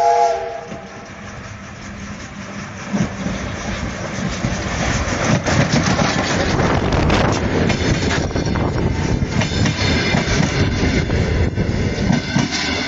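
Steam locomotive's whistle ending just as it opens, then a Soviet SO-class steam locomotive and its passenger coaches passing close by, growing louder over the first few seconds into a steady rush of wheel clatter and steam.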